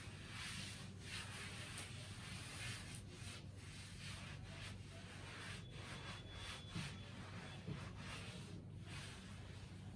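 Chalk being wiped off a blackboard with a cloth duster: faint, uneven back-and-forth rubbing strokes.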